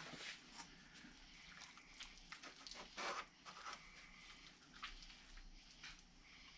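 Near silence, with a few faint, soft short taps and rustles scattered through.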